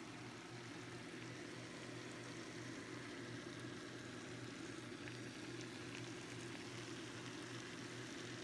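Faint, steady sizzling of chow mein noodles and vegetables in a hot wok, over a low steady hum.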